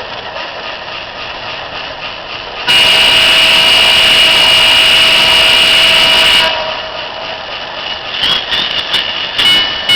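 An RSD-15 model diesel locomotive's onboard sound system plays steady engine running. Then comes a loud, steady horn blast of several held tones for about four seconds, which cuts off abruptly. Near the end, short repeated tones sound about two a second.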